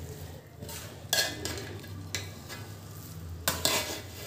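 Partly cooked biryani rice bubbling in its liquid in a pot, stirred with a spoon that scrapes against the pot a few times, over a steady low hum.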